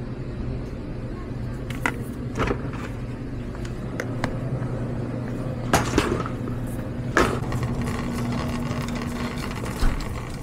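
Wire grocery shopping cart pushed over a store floor, its wheels rolling with a steady low rumble, with several sharp knocks and clanks as cans go into the metal basket.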